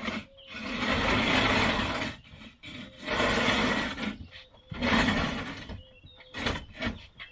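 Empty 1000-litre IBC tank on its pallet base being shoved across concrete: three long scraping drags, then a few short knocks near the end.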